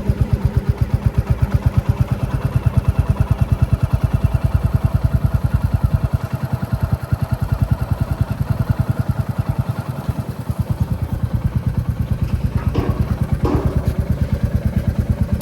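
Royal Enfield Classic 350's single-cylinder four-stroke engine thumping at low revs, an even beat of about eight firing pulses a second. Two brief higher-pitched sounds come about thirteen seconds in.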